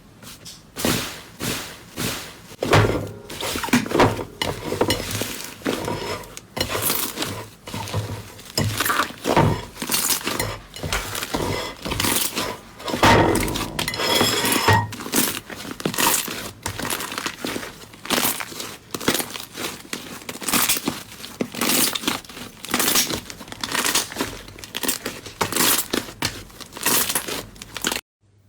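Slime being squeezed and pressed by hand: a rapid, irregular run of sticky clicks and pops, with a few louder squelches. It cuts off suddenly just before the end.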